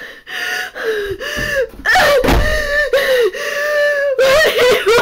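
A person's high-pitched wailing voice doing a comic old-hag ghost cry: long wavering notes that bend downward at their ends, broken by short gasping gaps, and breaking into a fast warble near the end.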